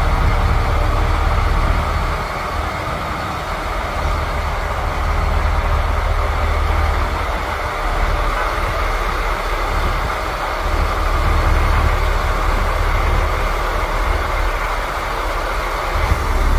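Boom truck engine running with a steady low rumble that swells and eases a little every few seconds, as the truck drives the crane while it lowers a load.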